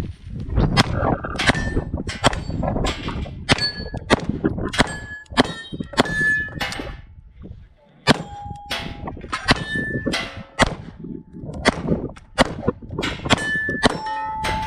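Rapid series of metallic clangs from steel shooting targets being hit, each strike leaving a short ringing tone. The hits come at roughly two a second, with a brief lull about halfway through.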